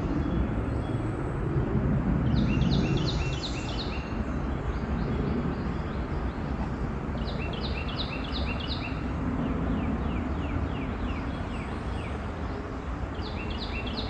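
A songbird singing a short phrase of quick repeated notes, three times, over a steady rushing outdoor noise.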